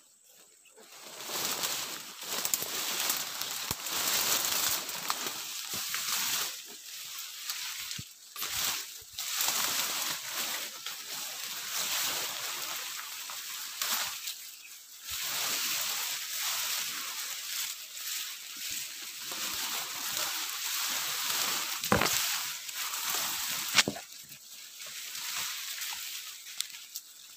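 Grass blades and fern fronds rustling and brushing against the camera as it is pushed through dense undergrowth, a noisy, uneven swishing with a couple of sharper snaps toward the end.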